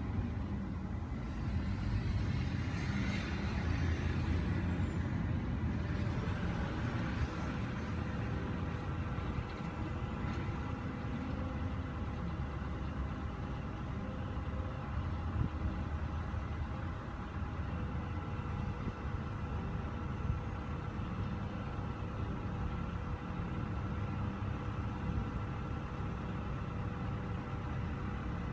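Steady low rumble of vehicle engines, with a few faint steady hums over it. For several seconds near the start it swells louder with a hiss and a faint high whine.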